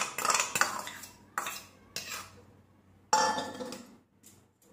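Spoon clinking and scraping against a bowl and a steel mixer-grinder jar as thick curd is spooned into the jar, a run of sharp knocks with the loudest about three seconds in, dying away near the end.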